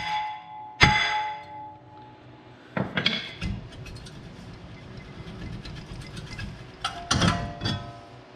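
Two hammer blows on a rusted brake rotor, one right at the start and one about a second in, each leaving the rotor ringing. Then there are metal clanks and rattling as the loosened rotor is worked free and pulled off the wheel hub, with a louder ringing clatter near the end.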